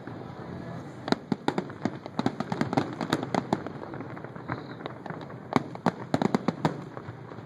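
Fireworks finale: rapid volleys of sharp bangs from aerial shells, one dense flurry starting about a second in and another a little past five seconds.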